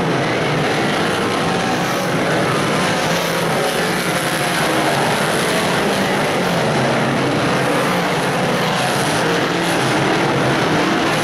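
Several big-block V8 dirt modified race cars racing together, their engines making a loud, steady drone whose pitch wavers as cars rise and fall on the throttle around the track.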